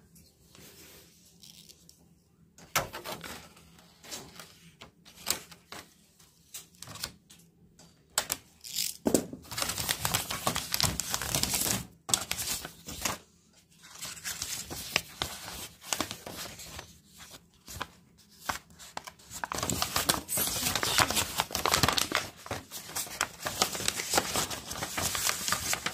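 Clear plastic packaging film being crinkled and torn off a new mini oven's baking tray and rack, with a paper manual being handled. Irregular crackling that starts after a couple of seconds of quiet and comes in thick spells about ten seconds in and again near the end.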